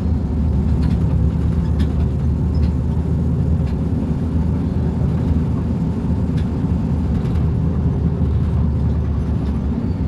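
Mercedes-Benz O-500U city bus's diesel engine running steadily, with a few light ticks.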